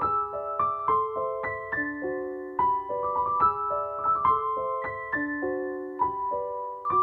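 Soft background piano music: a gentle melody of single notes over held chords at an even, unhurried pace.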